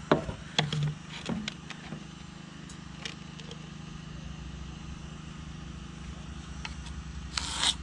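Knocks and clicks of a long spirit level being set against a block wall, with a pencil scratching a marking line along it, and a louder scrape near the end. A steady low hum runs underneath.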